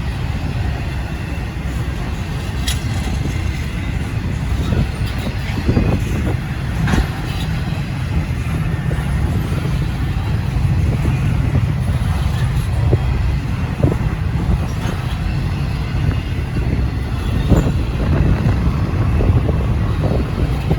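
Slow-moving Norfolk Southern intermodal freight train rolling past with a steady low rumble, broken by a few scattered clanks from the wheels and cars, with wind buffeting the microphone.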